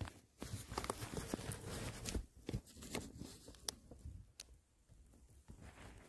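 Rustling and scraping against paper sacks and cardboard boxes, with several sharp clicks, for about the first four seconds, then quieter.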